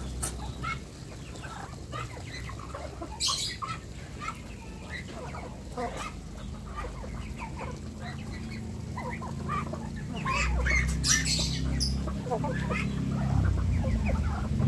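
A mixed flock of chickens and ducks calling while they feed: a steady jumble of clucks and quacks with a few louder sharp squawks. The flock gets louder about ten seconds in.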